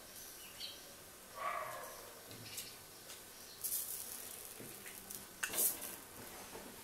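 Faint sizzling of a buttered chapati frying on a hot flat tawa over a gas flame, with short light clinks and scrapes of a steel spoon on the pan as more filling is spooned on, the sharpest about five and a half seconds in.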